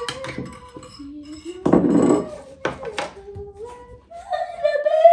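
A voice singing a tune in held notes that step up and down, with a clatter of dishes or cookware about two seconds in and a few light knocks.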